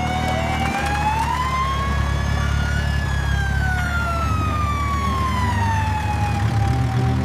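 A siren wailing once, climbing slowly in pitch to a peak about three seconds in and then sliding slowly back down, over a steady low vehicle engine rumble.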